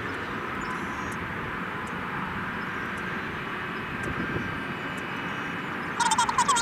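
Steady jet aircraft engine noise: an even rumble with hiss and no single event standing out.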